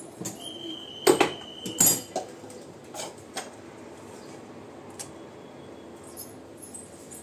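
Stainless steel pots, lids and dishes clinking and knocking together as they are handled, two loud knocks about one and two seconds in, with a few lighter clinks and a brief metallic ring.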